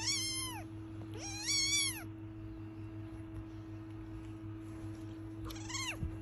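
A British Longhair kitten meowing three times in a high pitch, each call rising and then falling. The second meow is the longest and loudest, about a second; the last, near the end, is short.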